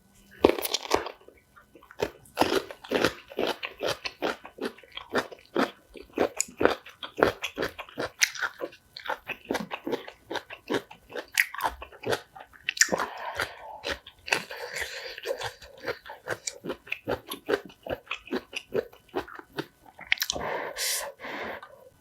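Close-up eating of spicy kimchi: crisp crunches and chewing, several bites a second, broken by two short stretches of softer, smoother noise, one about midway and one near the end.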